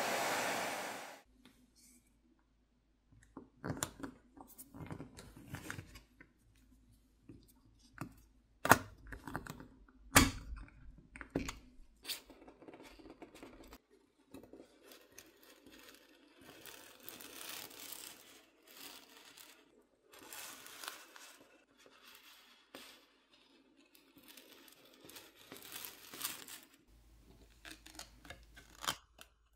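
A hairdryer blowing on the phone's back, cutting off about a second in. Then a long run of scattered clicks, scrapes and tearing sounds as a plastic pry pick works around the seam and the heat-softened adhesive under the glass back plate peels apart.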